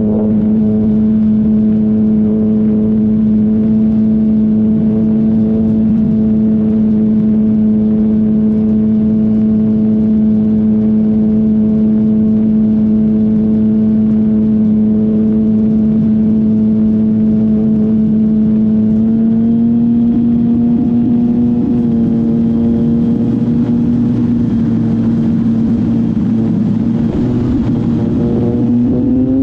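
Electric motor and propeller of an E-flite Extra 300 RC plane running at a steady pitch, over a rush of wind. The pitch steps up slightly about two-thirds of the way through and climbs again near the end as the throttle is advanced.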